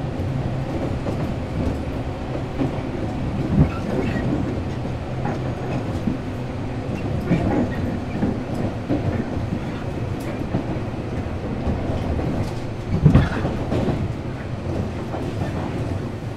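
Tobu 8000 series electric train running at speed, heard from inside the passenger car: a steady rumble of wheels on rail with clacks over rail joints. Two louder knocks come about 3.5 s and 13 s in.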